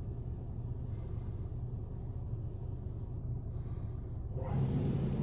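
Christ rollover car wash gantry heard from inside the car cabin: a steady low machinery rumble that grows louder about four and a half seconds in, turning into a broad rushing noise as the gantry passes over the windscreen.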